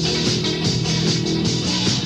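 Rock band music from a 1981 cassette album: guitar and bass over a steady drum beat.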